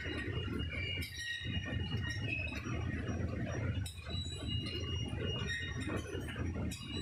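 Chicken slaughter line running: a continuous churning rumble of water and machinery from a screw pre-chiller. Over it come thin, high, shifting squeaks and light metallic clinks, from the overhead shackle conveyor.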